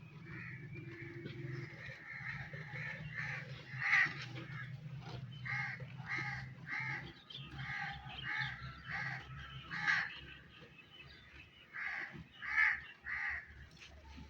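Crows cawing: about a dozen harsh calls in quick runs, over a steady low hum.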